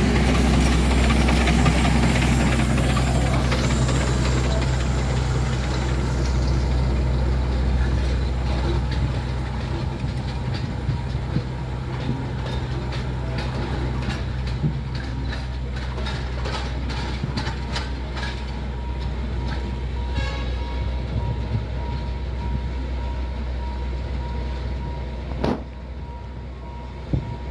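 Alishan Forest Railway SL-25 geared Shay steam locomotive and its train: a steady low rumble, with a hiss of steam in the first few seconds. Sharp clicks from the wheels and track follow as the train moves off and draws away.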